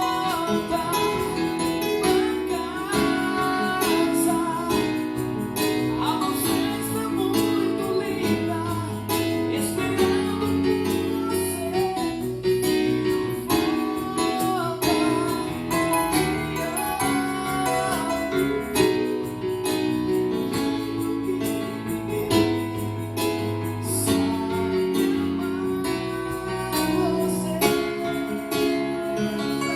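Live gospel band playing: keyboard, bass guitar, cajón and tambourine keeping a steady beat, with a voice singing over them.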